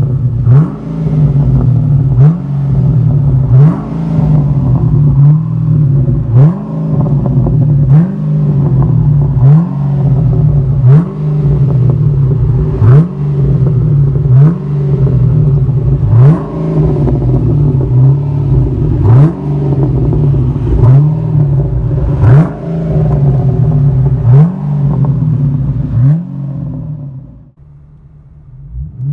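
Pontiac G8 GT's 6.0-litre V8 blipped over and over through a cat-back exhaust with an X-pipe and Street Demon mufflers, each rev rising sharply and falling back to idle, about one every one and a half seconds. Near the end it settles to a quieter steady idle.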